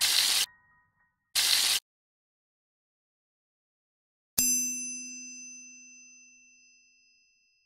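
Logo-sting sound effects: two short bursts of noise about a second apart, then a single bright bell-like ding about four seconds in that rings on and slowly fades over about three seconds.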